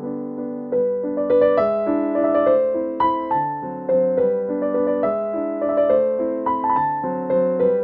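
Background piano music: a light melody of clear notes over a gently moving accompaniment.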